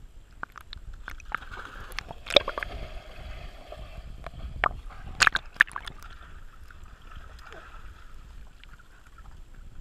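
Pool water sloshing and splashing around the camera as a dog swims past, muffled by the camera's waterproof housing, with several sharp knocks, the loudest about two and a half and five seconds in.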